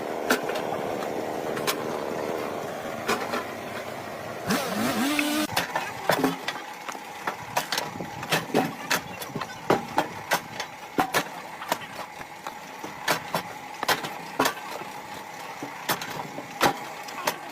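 Firewood being split by machine: a running engine with a steady hum and many irregular sharp knocks of wood. A louder burst of noise comes about four to five seconds in.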